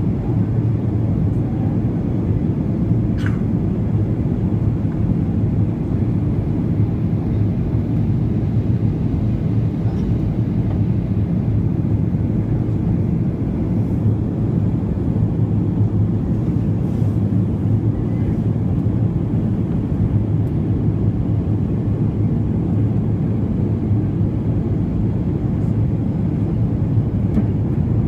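Steady low rumble and rush of a Boeing 737-800 with CFM56-7B engines on approach, holding even throughout, with a faint click about three seconds in.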